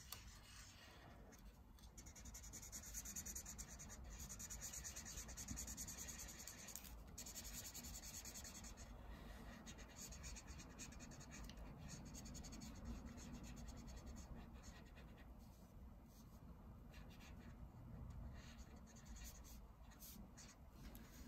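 Faint scratching of a brown Crayola felt-tip marker on paper as an irregular spot is outlined and colored in.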